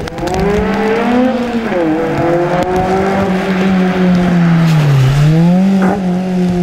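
Small rear-engined racing saloon of the Fiat 600 type, its engine running hard in a steady, loud note. The pitch dips twice and climbs back as it comes off and back on the throttle through the course.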